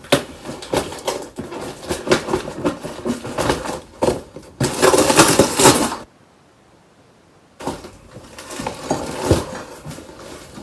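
Packaging and small parts being handled: irregular clicks, knocks and rustling, with a louder stretch of rustling or tearing about five seconds in, a short quiet pause, then more knocks.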